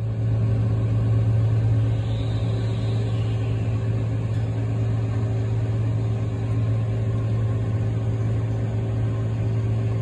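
Heavy machinery engine running at a steady speed: a constant low hum with a noisy mechanical wash over it.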